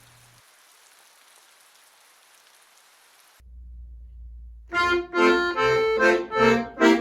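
Faint steady hiss for about three seconds, then a low hum cuts in suddenly. About five seconds in, the melody of a children's song starts, played as loud separate notes on a reedy, accordion-like instrument.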